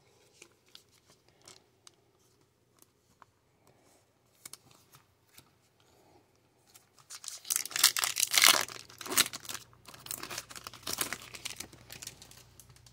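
A foil trading-card pack wrapper being torn open and crinkled: a run of sharp crackling starting about seven seconds in, after a few soft ticks of cards being handled.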